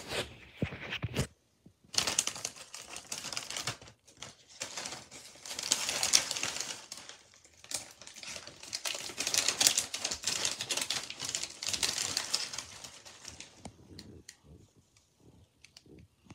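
Crinkling and rustling with dense small crackles, in two long stretches about two and eight seconds in, dying away near the end.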